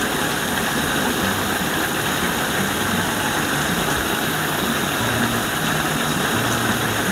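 Pork humba braising liquid boiling hard in a wok: a steady, dense bubbling hiss.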